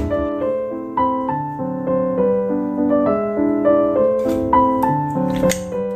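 Background piano music playing a slow melody of held notes, with a few faint clicks and knocks in the last two seconds.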